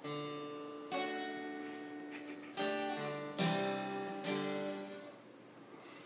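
Acoustic guitar strummed slowly, about five chords, each left to ring and decay; the last fades out about a second before the end.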